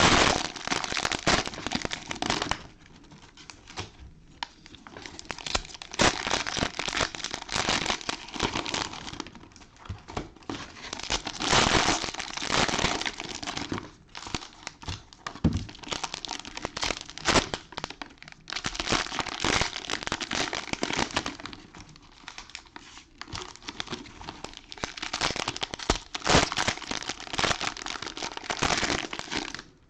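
Cellophane wrappers of 2020 Panini Prizm football cello packs being torn open and crinkled by hand, in stretches of crackling with short pauses between.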